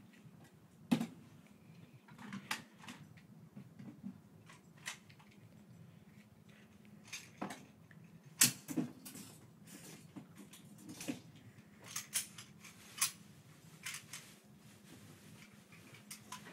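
A series of irregular sharp clicks and knocks over a quiet, steady background, the loudest about eight and a half seconds in.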